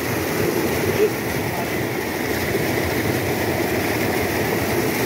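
Water rushing steadily over the rock spillway of an overflowing reservoir, an even, loud rush of noise, with a brief knock about a second in.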